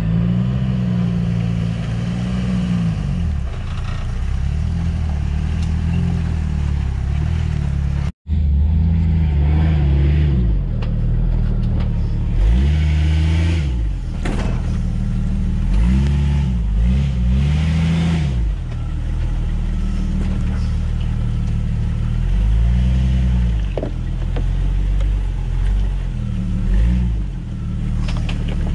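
Jeep Wrangler TJ engine revving up and down again and again while crawling off-road, its pitch rising and falling with each push of the throttle. The sound cuts out for a moment about eight seconds in.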